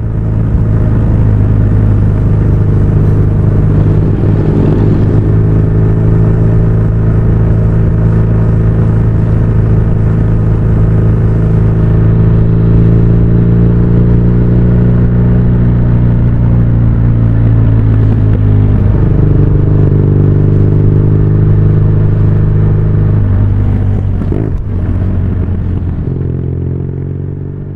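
BMW R nineT's air/oil-cooled boxer-twin engine running steadily while riding, heard from on the bike. Its pitch shifts twice in the second half, dropping about two-thirds of the way through and changing again a few seconds later.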